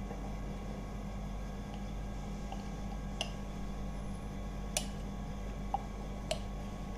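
Steady low hum, with four faint clicks in the second half as a spoon drops ginger-garlic paste into a plastic bowl of marinating chicken.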